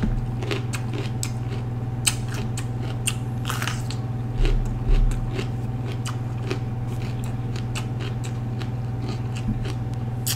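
Mouth-closed chewing of raw green bell pepper: a run of crisp, wet crunches. A steady low hum underlies it, with a couple of low thumps about four and a half seconds in.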